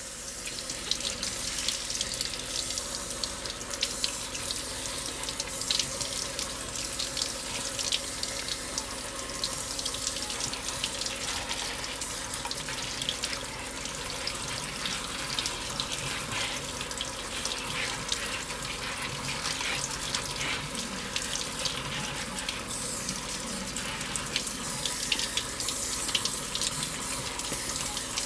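Water from a pull-down kitchen faucet running steadily, splashing over strawberries in a plastic colander.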